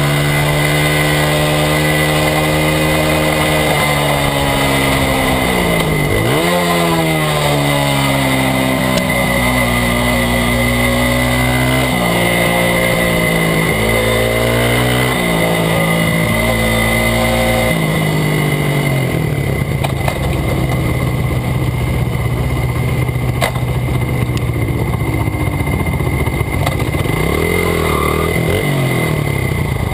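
Honda XR/CRF100 minibike's small single-cylinder four-stroke engine, heard close up from the bike, running at steady high revs with several sharp drops in pitch as it is shifted and backed off. After about 18 seconds it settles to rough, low-rev running as the bike rolls slowly, with a few small blips of throttle near the end.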